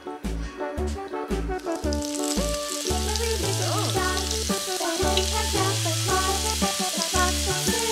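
Meat sizzling on an electric hot plate's ridged grill plate, the hiss setting in about two seconds in and continuing steadily, over background music with a bass line.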